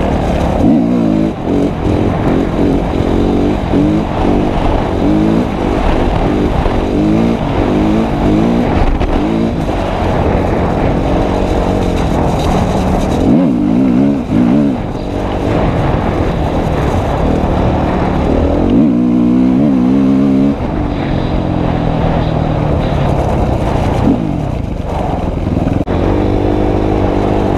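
Motorcycle engine revving hard, its pitch climbing and dropping again and again as the throttle is worked and the gears change. There are a few longer climbs after about halfway.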